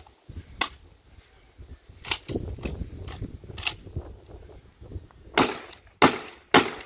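Remington 870 TAC-14 pump-action shotgun fired in a pump-and-shoot drill. A few sharp reports come a second or more apart, then three louder shots in quick succession near the end.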